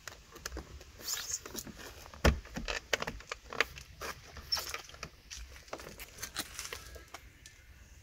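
Plastic clicks, taps and scrapes as the painted plastic cap of a car's wing mirror, with its turn-signal lens, is handled and fitted on the mirror housing. One louder knock comes a little over two seconds in, and the clicking thins out near the end.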